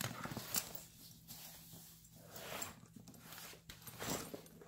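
Fabric tool bag being handled and turned over: thick material rustling and brushing in short, irregular bursts.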